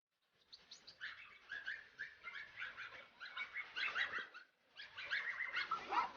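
Birds chirping: a rapid run of many short, high chirps, with a brief pause about four and a half seconds in.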